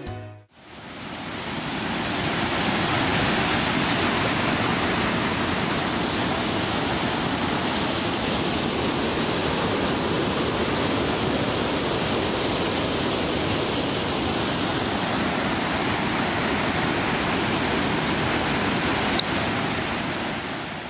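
Rushing water of river rapids and a waterfall: a steady, even rush of white water that fades in at the start and fades out at the end.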